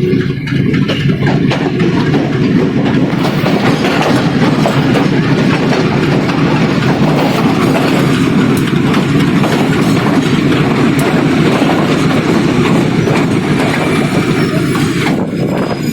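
Passenger train running along the track: a steady rumble of wheels on rails with light clatter.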